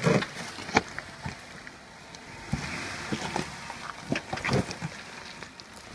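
Jeep Wrangler's tyres crunching and grinding over loose rock as it crawls slowly through a rock garden. Rocks knock and scrape sharply under it, loudest at the very start and again about three-quarters of a second in, with more clusters of knocks around two and a half and four and a half seconds.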